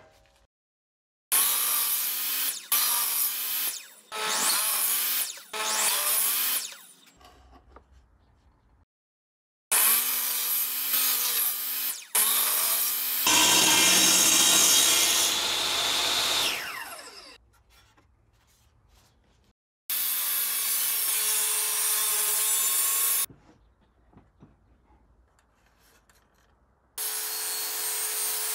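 Einhell TE-CC 250 UF jobsite table saw cutting softwood boards: several separate cuts, each a loud, hissing blade-through-wood sound that starts and stops abruptly, its motor tone dipping as the wood loads the blade. One run ends with a falling whine as the blade slows.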